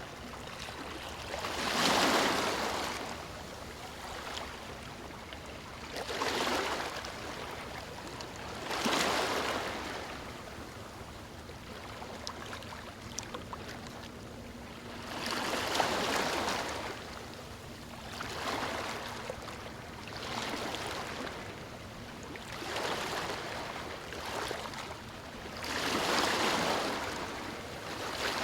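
Ocean waves breaking and washing up the shore: a surge of surf every three to four seconds over a steady wash, the biggest about two seconds in, halfway through and near the end.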